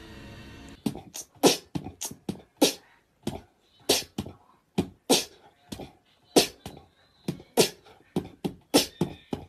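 A string of sharp percussive pops and clicks, roughly two a second and unevenly spaced, starting just under a second in: beatbox-style mouth percussion.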